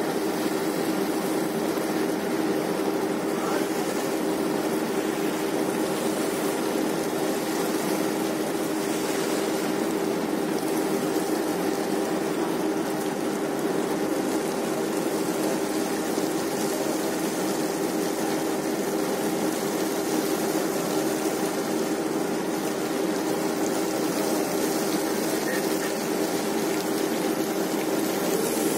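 Steady drone of a research ship's deck machinery, a winch paying out cable to lower a heavy sediment corer. A couple of steady low hum tones sit over a wash of mechanical noise.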